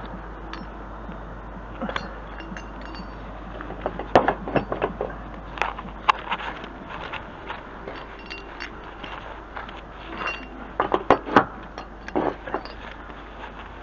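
Irregular light metallic clinks and knocks, bunched in two clusters, about four seconds in and again about eleven seconds in.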